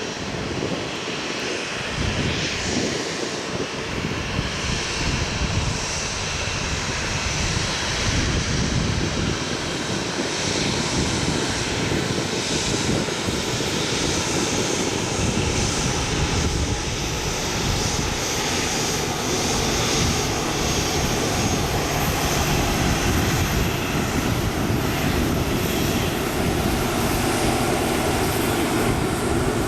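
Airbus A320 airliner's jet engines running at taxi power as it taxis, a steady engine noise that grows gradually louder.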